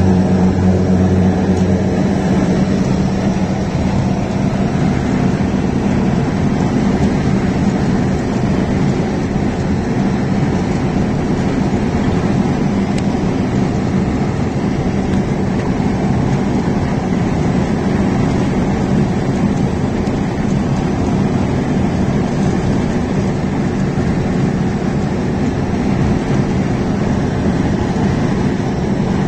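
Steady drone inside the cab of a semi truck at highway speed: engine hum mixed with road and wind noise, the hum a little louder in the first couple of seconds.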